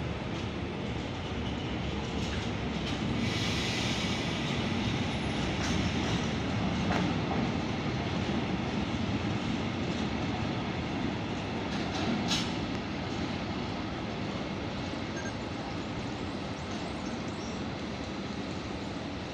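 Train running along the rails: a steady rumble of wheels and wagons, with a brief high-pitched hiss about three to five seconds in.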